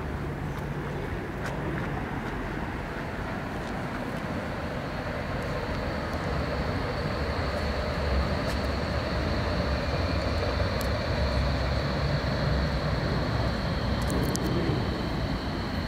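City street traffic with a vehicle rumbling past, louder in the second half. A steady high whine joins about five seconds in, and a second, lower whine joins about ten seconds in.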